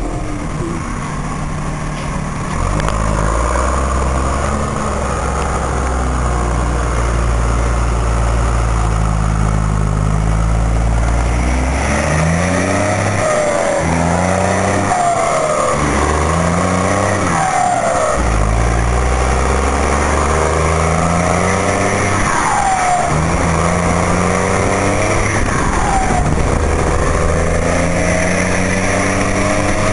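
Volkswagen 23-250E truck's diesel engine pulling under load, first at steady revs. From about twelve seconds in it repeatedly rises in pitch and drops back as it shifts up through the gears.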